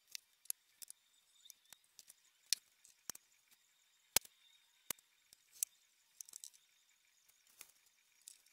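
Irregular sharp clicks and light knocks from particleboard furniture panels being handled, a few louder ones around the middle.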